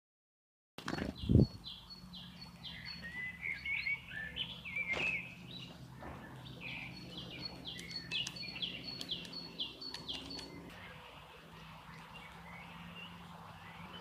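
Small songbirds singing and calling. Two runs of short falling whistled notes come about three a second, with twittering chirps between them. A dull thump about a second in, and a faint low hum underneath.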